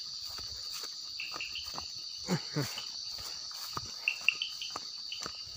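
Night chorus of crickets, a steady high-pitched buzz, with scattered soft clicks and a few short chirps about four seconds in.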